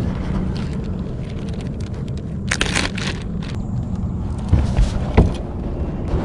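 A boat's motor running with a steady low rumble. There is a short rush of noise about two and a half seconds in, and two knocks near the end.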